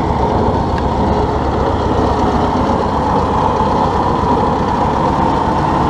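Ford 600 tractor's four-cylinder engine running steadily, just brought back to life after sitting unused for 20 years.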